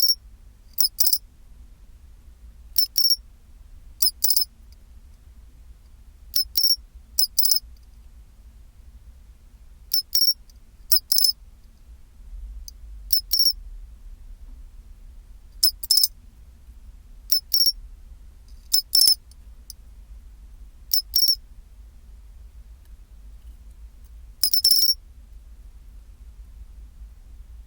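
Pine cricket (matsumushi, Xenogryllus marmoratus) singing its 'chin-chiro-rin' call: short, high chirps, often in pairs, repeated every second or two over a faint low hum.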